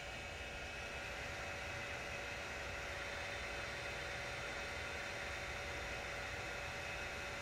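Sovol SV02 3D printer's fans running while it heats up: a steady whirring hiss with a few faint steady tones, no motor moves.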